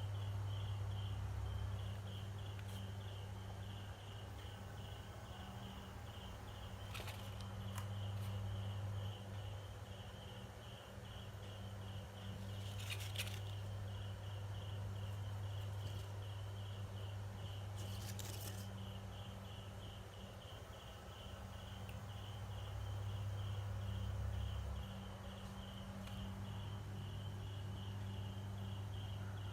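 Insects chirping steadily, about three to four short chirps a second, over a low steady drone. There are brief rustling noises three times.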